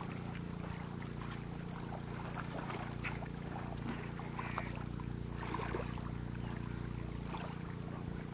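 A steady low mechanical hum, like a motor running nearby, with scattered faint ticks and one short high chirp about halfway through.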